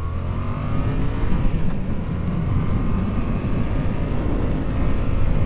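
Yamaha XSR700's parallel-twin engine accelerating, its note rising for about the first second, then running on steadily under a low rushing noise.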